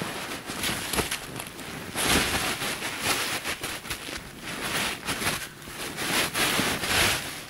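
Rustling of a fabric blanket and a plastic sheet as they are spread and smoothed out by hand on the packed-snow floor of a snow shelter, with a few soft knocks.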